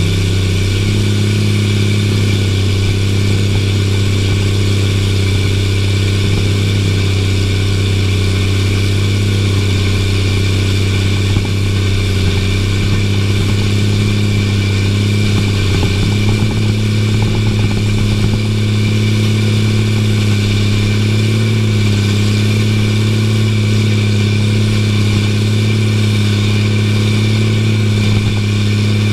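Caterpillar rubber-tracked tractor's diesel engine, heard from inside the cab, running as a steady low drone under load while pulling a field cultivator through the soil; its pitch shifts slightly about halfway through.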